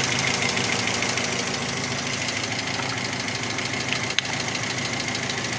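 Chery Amulet engine, freshly rebuilt with a new camshaft, idling warm with a steady ticking from the top end, which the owner suspects may be the hydraulic lash adjusters.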